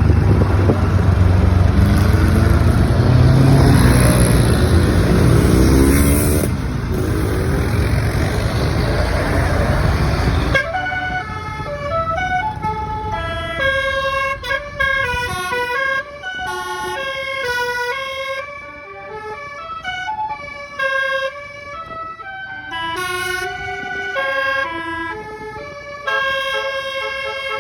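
About ten seconds of loud bus engine and road noise with some rising tones, then a basuri-style multi-tone bus horn (a 'telolet' horn) playing a melody of held notes that step up and down.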